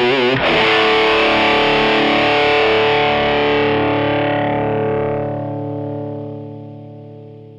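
Distorted electric guitar through the takky drive2 extreme drive effect: a last note bent with wide vibrato, then a chord struck about half a second in and left to ring, fading away until it cuts off at the very end.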